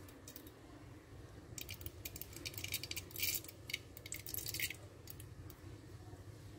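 Mustard seeds crackling in hot oil in a kadai: bursts of quick, faint crackles between about one and a half and five seconds in, over a steady low hum. The crackling shows the oil is hot enough for the seeds to fry for tempering.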